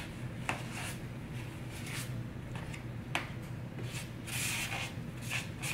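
Hands rubbing olive-oiled potatoes on a plate: soft rubbing and squishing with a few sharp clicks, over a steady low hum.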